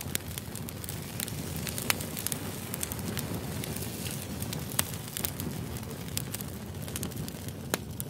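Steady low rumbling noise with irregular sharp crackles and clicks scattered through it, a few of them louder, about two seconds in and nearly five seconds in.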